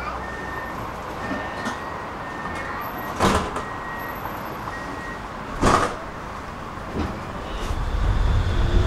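Tram at a stop: a door-warning beeper sounds in short repeated tones, and the sliding doors close with two loud knocks, about three and five and a half seconds in. Near the end the tram starts to move, a low rumble and a faint rising motor whine building.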